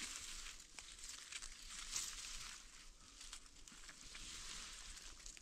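Faint rustling and crackling of grass blades and dry leaf litter as gloved hands push through the grass and pull up a mushroom, with a few small snaps and a louder rustle about two seconds in.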